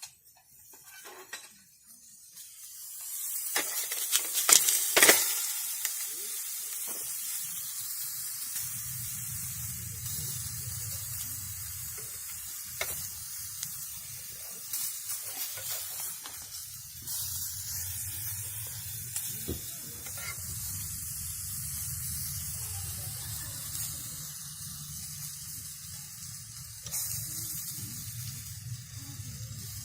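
Food frying in a hot pan: a loud burst of spitting about four seconds in, settling into a steady sizzle with scattered pops, with a low steady hum underneath from about nine seconds in.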